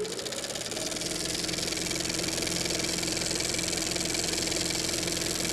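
Motor-like mechanical hum that rises in pitch during the first second, then runs steadily with a high hiss.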